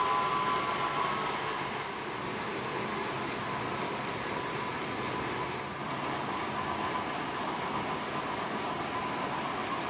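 H0-scale model trains running on the layout: a faint high electric-motor whine and rail noise from a passing wagon train fade away in the first second or so, and a fainter whine of another locomotive comes back from about six seconds in, over a steady background hiss.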